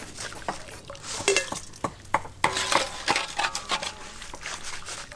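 Large wire-mesh strainer basket clinking and scraping against a metal wok and a steel bowl, a run of sharp metallic knocks, some ringing briefly in the middle, over the sizzle of chicken legs deep-frying in hot oil.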